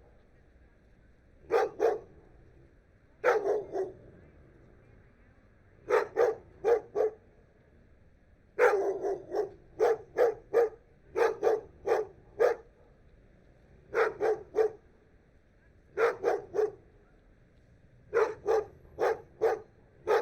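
A dog barking in short groups of two to four barks, with a pause of a second or two between groups. In the middle it barks several groups in quick succession.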